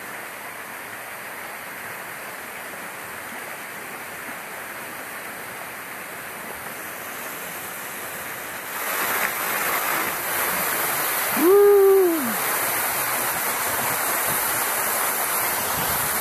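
A waterfall spilling down a sea cliff splashes steadily into the water, and its rush grows louder and brighter about nine seconds in as the kayak comes close under the falling spray. A short call that rises and falls in pitch stands out over it at about eleven and a half seconds in.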